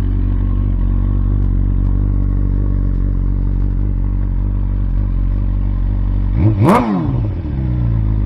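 2021 BMW S1000RR inline-four idling steadily through the stock muffler of a titanium Akrapovic full system, on a Brentune-flashed ECU. It is blipped once, about six and a half seconds in, revving up quickly and falling straight back to idle.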